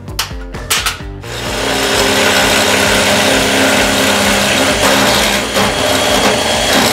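Electric drill with a step bit cutting through a metal fuel-cell plate: the motor runs under load with a steady, harsh grind of bit on metal, starting about a second in after a few short knocks.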